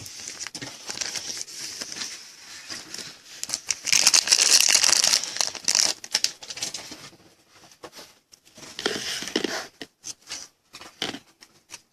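Crinkling and tearing of a trading-card pack's wrapper as it is opened, loudest about four to five seconds in, followed by fainter rustling and light clicks.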